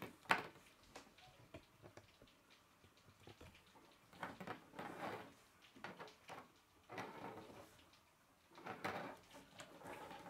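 Plastic K'nex rods and connectors clicking and rattling as they are handled and fitted together, in short irregular bursts, with a sharp click just after the start.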